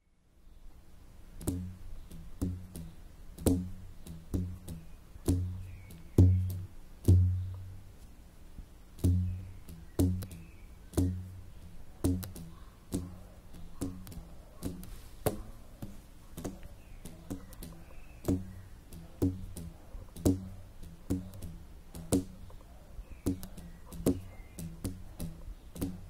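Low, twanging plucked notes from stretched cords plucked by hand on a household object, at a few different pitches. Each note starts with a sharp click and dies away quickly. They come about one a second, quickening to nearly two a second about halfway through.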